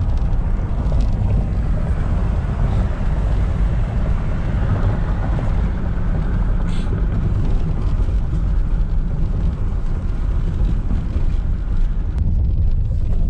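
Car driving at speed, heard from inside the cabin: a steady low rumble of tyre and engine noise.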